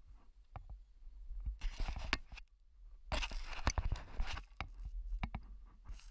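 Two bursts of scraping and crunching, each about a second long, with scattered knocks between: a caver moving against rock.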